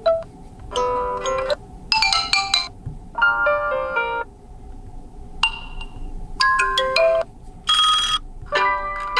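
OnePlus Nord CE 2 Lite ringtones playing as a run of short previews, about seven different melodic snippets one after another. Each lasts roughly half a second to a second before cutting off, with brief gaps between them.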